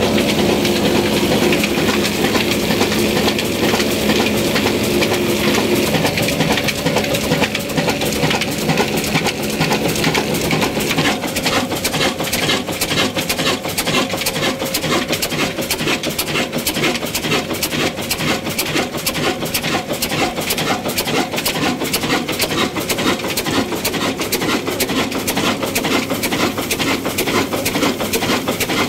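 An old Ruston Hornsby stationary diesel engine running under load, with a steady, rapid mechanical knocking and clatter. For about the first ten seconds a steady hum from the belt-driven line shaft and machinery sounds along with it, then fades.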